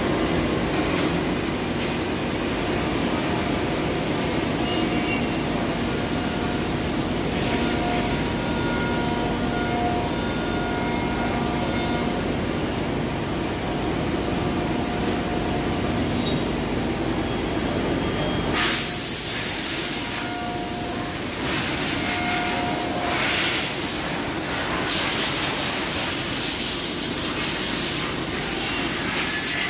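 Emmegi Diamant 7700 four-axis CNC machining centre running a job: steady machine noise with coolant spray hissing inside the enclosure and faint whistling tones coming and going. About 18 seconds in, the low rumble drops away and the hiss turns brighter.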